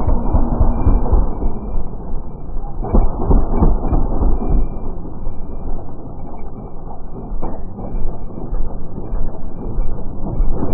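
KTM dirt bike engine revving hard on a steep hillclimb, picked up so close that it comes through as a loud, muffled rumble that surges unevenly.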